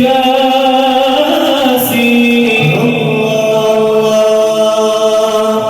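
Male voices chanting Sufi madih, praise song for the Prophet, in long held notes that step to new pitches about two and three seconds in.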